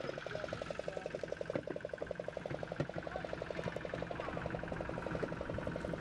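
Fishing boat's engine running steadily with a rapid, even chugging beat.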